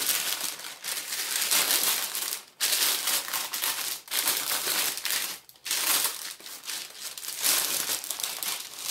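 Baking paper crinkling as hands press and smooth it down into a baking tray, in several long rustles with short breaks between them.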